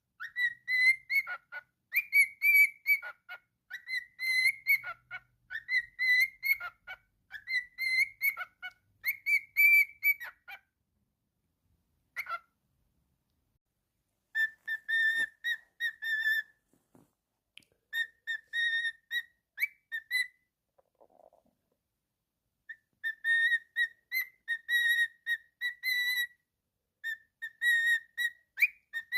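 Cockatiel whistling a tune in clear, pitched notes. There is a long run of notes for about the first ten seconds, then shorter phrases with silent pauses between them.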